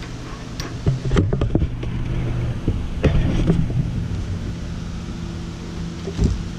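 Handling noise: clothing and an arm rubbing and brushing right against the camera, with a low rumble and a few sharp knocks and clicks.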